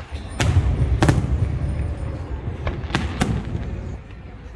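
Aerial fireworks shells bursting overhead: sharp bangs about half a second and one second in, then a close pair around three seconds, over a continuous low rumble of booms.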